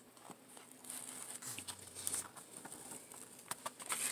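Faint rustling and crinkling of a diamond painting canvas and its plastic protective film being handled and smoothed flat, with a few light ticks near the end.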